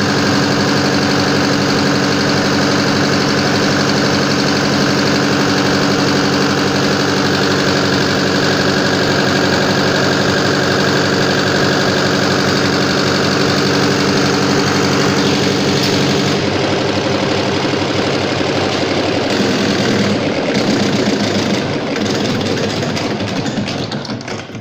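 Fuel-injection pump test bench running a four-plunger in-line injection pump from an MTZ-80's D-240 diesel, a steady mechanical running sound. The tone changes about two-thirds of the way through, and the bench winds down near the end. The pump is being checked on the stand after repair.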